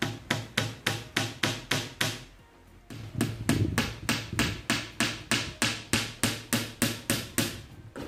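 Hammer driving nails into plywood cabinet panels: quick, evenly spaced strikes about four a second, a short pause about two seconds in, then another steady run of strikes.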